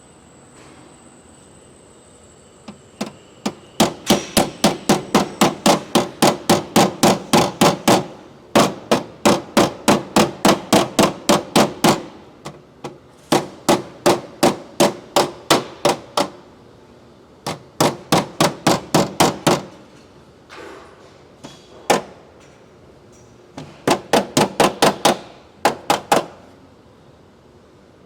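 Body hammer tapping on a car's sheet-metal quarter panel in fast runs of about four blows a second, with short pauses between runs. The metal is being worked to straighten a pushed-in body line and edge.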